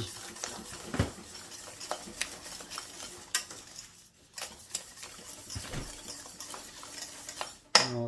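A wire balloon whisk beats thick, hot pastry cream in a stainless-steel saucepan, its wires clicking and scraping against the pan, while butter is worked into the cream to turn it into crème mousseline. There is a short lull about halfway and a sharper clack near the end.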